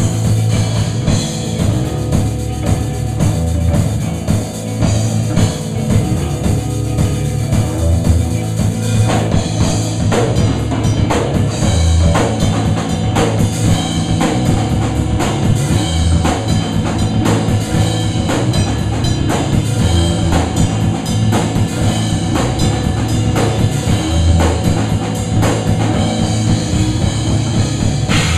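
A rock band playing loud live: electric guitar and bass over a drum kit with constant cymbal hits.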